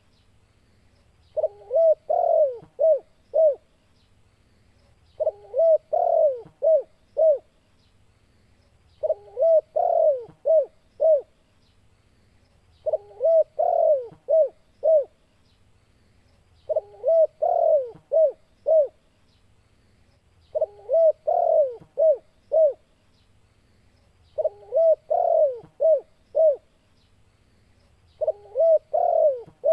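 Spotted dove cooing: a phrase of five or six notes, repeated about every four seconds, eight times, with short silences between phrases. It is the loud challenging call meant to provoke other spotted doves into a fight.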